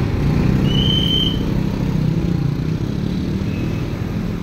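Motorcycle engine running at low speed amid close street traffic, heard from on the moving bike as a steady low rumble. A brief high whistle sounds about a second in.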